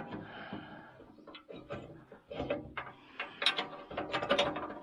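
Steel spikes, pins and brackets of a box blade clinking and rattling as they are adjusted by hand: a run of irregular metal clicks and knocks, loudest near the end.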